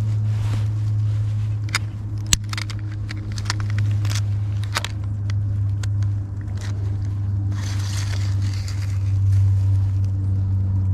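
A steady low hum throughout, with scattered sharp clicks, scrapes and rustles from handling a freshly caught smallmouth bass while measuring it.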